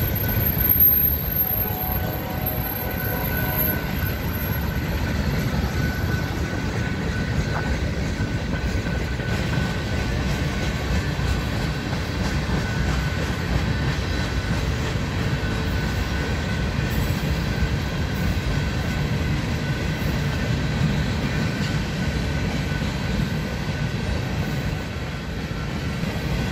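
Freight train of tank cars rolling past at steady speed: an even rumble and rapid clatter of steel wheels on the rails, with a faint steady high-pitched ring underneath.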